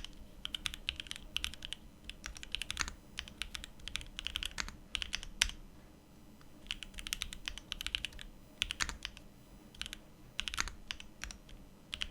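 Typing test on a Mode Envoy mechanical keyboard fitted with Wuque Studio Stellar keycaps and group-buy switches: quick runs of keystrokes in bursts of about a second, with short pauses between them.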